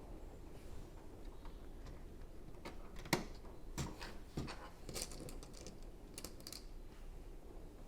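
Plastic Lego pieces clicking and clattering as they are handled and pressed together, in a string of irregular sharp clicks, the loudest a little after three seconds in.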